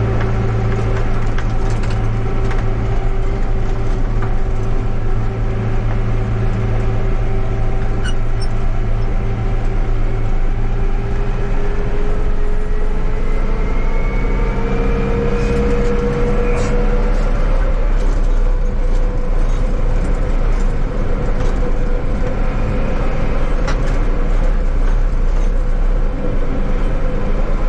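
Yanmar tractor running steadily with a low engine drone and a whine that rises slowly in pitch around the middle, with a few light clicks and rattles.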